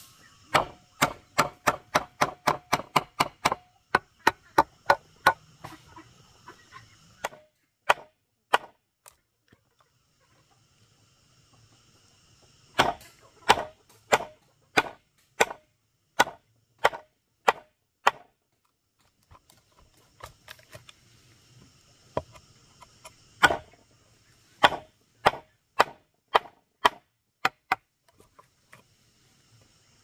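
Repeated sharp blows of a hand tool on wood, in runs of about two to three strikes a second with pauses between the runs.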